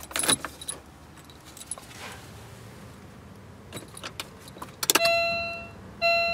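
Car keys jangling and the ignition switch clicking as the key is turned in the Daewoo Nexia's ignition lock. Near the end, the dashboard warning chime starts with the ignition on: a ringing ding that fades, sounding twice about a second apart.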